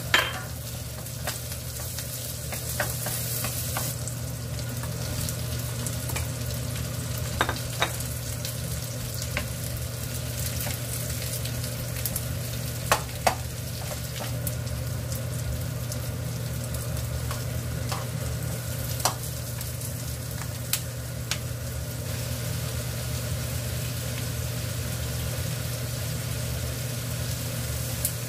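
Garlic and vegetables frying in butter in a nonstick pan, sizzling steadily, with a wooden spatula stirring and now and then knocking against the pan. A steady low hum runs underneath.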